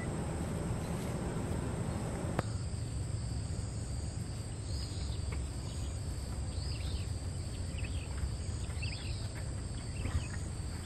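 Outdoor insect chorus: a steady high-pitched drone of crickets over a low background rumble, with a few short chirps in the second half and a click about two and a half seconds in.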